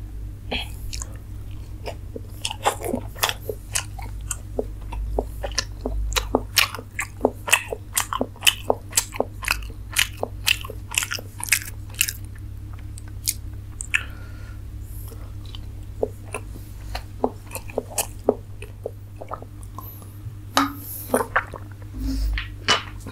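Close-up chewing and biting of steamed momos wrapped in soft fried luchi, a run of wet mouth clicks that is densest in the first half and picks up again near the end. A steady low hum runs underneath.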